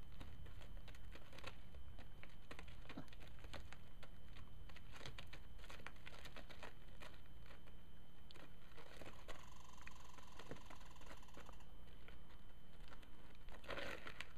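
Wind rumbling on the microphone of an outdoor handheld recording, with scattered crackles and rustling; a faint steady tone sounds for about two seconds a little past the middle.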